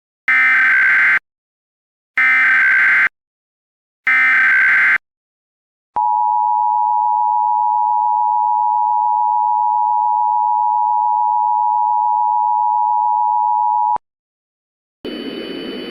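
Emergency Alert System tones: three short bursts of SAME header data, a harsh digital warble, followed by the EAS two-tone attention signal held steady for about eight seconds, then cut off abruptly. A hiss starts just before the end.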